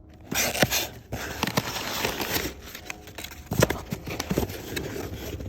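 Knife packaging being opened by hand: rustling and tearing, with a few sharp knocks and clicks.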